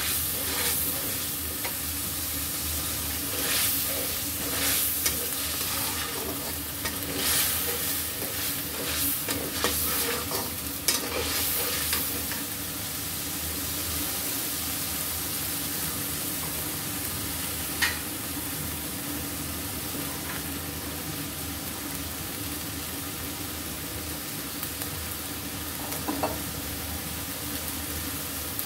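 Ground onion, ginger-garlic and green chilli paste sizzling in hot oil in a kadai, being fried until its raw smell goes. A metal spatula stirs and scrapes the pan for roughly the first twelve seconds, then the paste sizzles steadily on its own, with a single clink about 18 seconds in.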